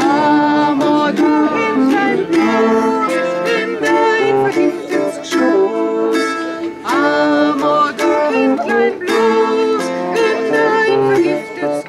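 Live medieval folk music: a long wooden wind instrument playing a melody in held notes over the plucked strings of a lute-type instrument.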